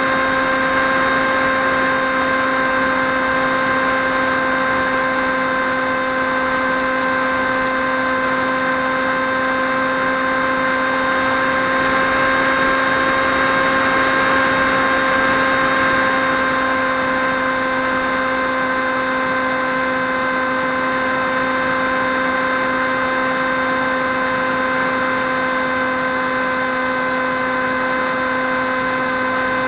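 Electric motor and propeller of a Swift 2 FPV model plane running at a steady throttle, heard up close as a steady whine with a hissing rush, swelling slightly about halfway through.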